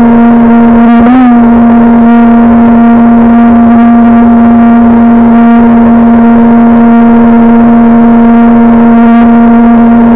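Model jet boat's P2632 brushless outrunner motor driving an NQD 20 mm jet drive, whining loudly at a steady pitch under steady throttle, with a brief wobble about a second in, over a steady rushing noise.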